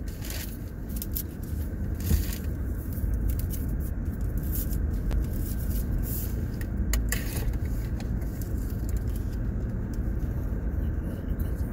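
Car cabin noise from inside a moving car: a steady low rumble of engine and road, with a few short light clicks and rustles scattered through it.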